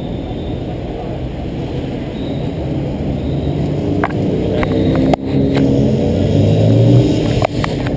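Road traffic: a motor vehicle's engine running and revving, its note rising and growing louder about two-thirds of the way through. A few sharp clicks are also heard.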